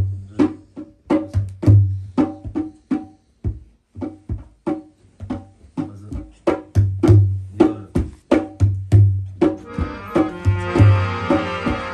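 Dholak, a two-headed barrel drum played with the hands, keeping up a quick, steady rhythm of deep bass strokes and sharp slaps. A harmonium's held chords come back in about nine and a half seconds in, over the drumming.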